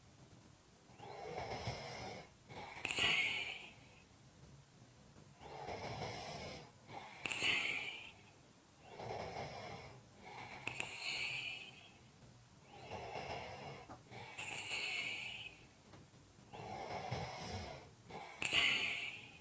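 A person breathing heavily with a light snore, slow and even: about five breaths, roughly one every four seconds, each with a lower, rougher stroke and a higher, hissing one.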